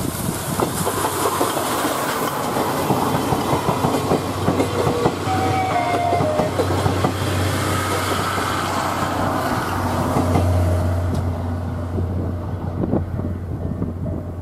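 Steam locomotive C11 123 and its train of 14-series passenger coaches passing close by: a dense clatter of wheels over rail joints that fades away near the end as the last coach goes by.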